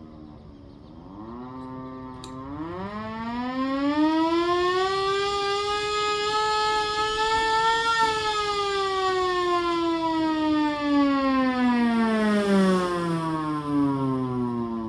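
Hand-crank siren driven with a blower: its pitch dips briefly, then winds up steadily for about seven seconds to a high wail before slowly winding back down.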